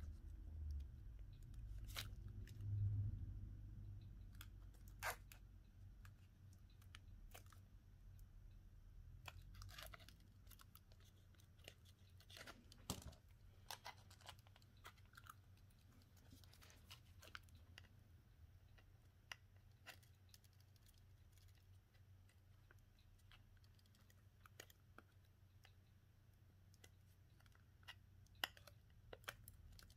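Faint, sparse clicks and scratches of small tools and parts being handled while a phone's screen is replaced, with a low rumble in the first few seconds.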